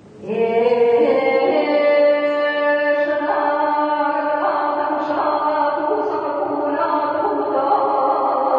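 Chanted vocal music in long held notes, changing pitch about three seconds in and again a second and a half later.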